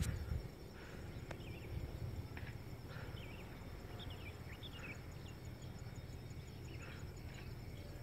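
Faint open-air ambience: a low steady rumble, a faint high insect trill, and scattered thin chirps of small birds, most of them between about one and five seconds in.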